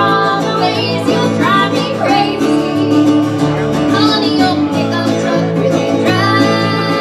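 Live country band playing: a woman singing lead over strummed acoustic guitar and bass.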